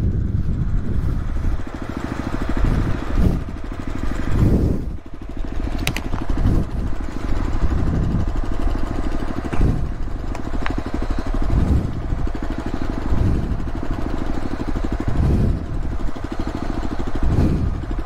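Honda CB500X's parallel-twin motorcycle engine running while ridden, the revs surging and dropping every second or two, with a few sharp clicks.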